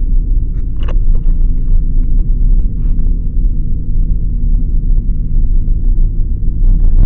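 Steady low rumble of a car's engine and tyres on the road, heard from inside the moving vehicle, with scattered light rattles and a brief squeak about a second in.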